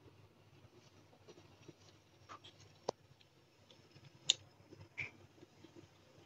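Quiet room with a few faint, scattered small clicks and taps, a sharp one about three seconds in and the loudest just after four seconds.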